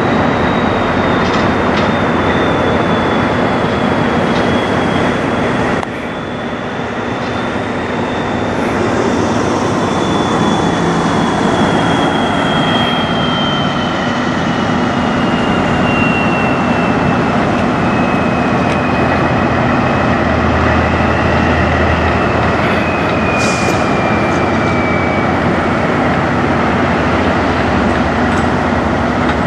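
Steady, loud heavy-vehicle running noise with a thin high whine that slowly falls in pitch, briefly dipping in level about six seconds in.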